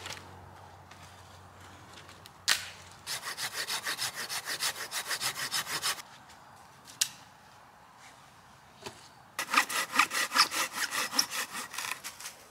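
Hand saw cutting dead wood in two runs of quick, even strokes, about six a second, each run lasting about three seconds. A single sharp knock comes just before the first run.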